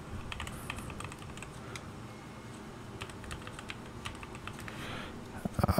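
Computer keyboard typing, irregular keystrokes entering a username and password, with a couple of louder knocks near the end.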